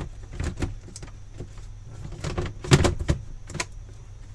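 Side panel of an Asus G20 compact gaming PC being pressed and fitted onto the case: a series of clicks and knocks as it seats, the loudest a little under three seconds in.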